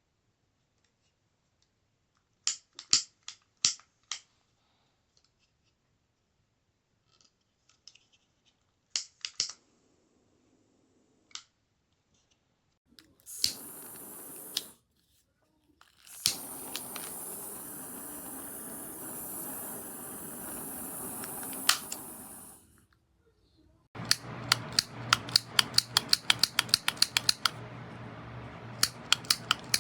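Refillable butane culinary torch: sharp igniter clicks in small clusters, then the jet flame hissing steadily, once briefly and once for about seven seconds. Near the end comes a fast run of sharp clicks over a steady hiss.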